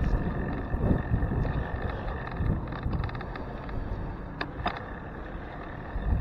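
Wind buffeting a bicycle's handlebar-mounted camera microphone while riding, with a steady low rumble. There is a short run of quick ticks about three seconds in and two sharp clicks a second or so later.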